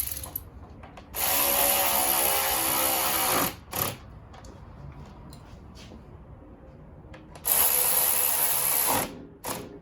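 Power drill driving in a radiator fan assembly mounting screw: two runs of about two seconds each with a motor whine, each followed by a short blip.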